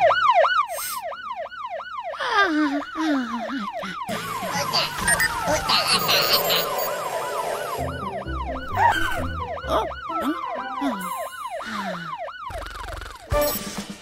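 Fire truck siren in a fast yelp, rising and falling about four times a second, over background music. A few falling glides are heard near the start.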